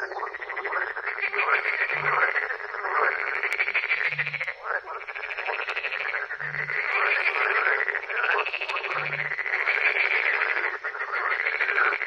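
Frogs croaking in a dense chorus that swells and fades about every two seconds. A short, deep low note sounds four times through it.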